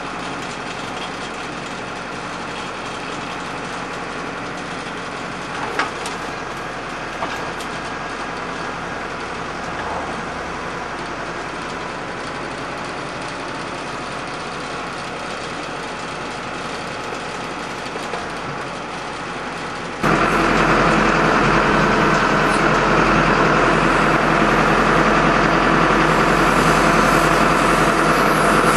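Valmet 6400 tractor's diesel engine running steadily while it drives the Botex crane, with a couple of short knocks about six and seven seconds in. About twenty seconds in the engine becomes suddenly louder and closer, heard from inside the tractor cab.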